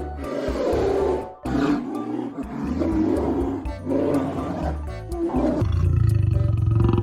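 A large animal growling and roaring over background music. From about five and a half seconds in, a deeper, steady, pulsing call takes over.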